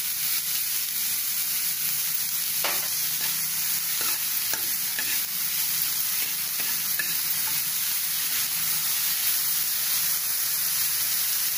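Chopped vegetables sizzling as they are stir-fried in a pan, with a spatula scraping and clicking against the pan now and then.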